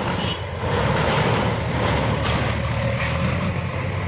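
Diesel engine of a heavy earthmoving machine (a demolition bulldozer) running steadily with a low drone.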